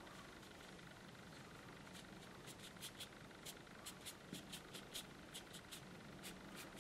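Faint dabbing and scratching of a watercolour brush on Fabriano watercolour paper: quick soft taps, a few a second and irregular, starting about two seconds in, over a near-silent room.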